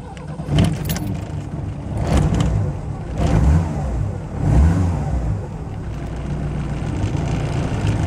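An old Dacia's car engine running just after starting, its revs rising and falling a couple of times.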